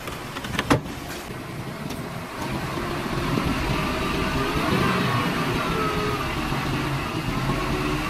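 Heavy diesel engine of earthmoving machinery running and pulling harder, growing louder with its pitch shifting about two and a half seconds in. A single sharp clank comes just under a second in.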